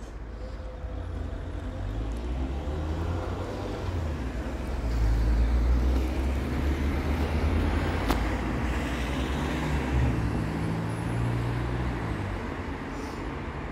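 Low engine rumble of road vehicles passing close by. It builds over the first few seconds and is loudest about five to six seconds in, with one sharp click about eight seconds in.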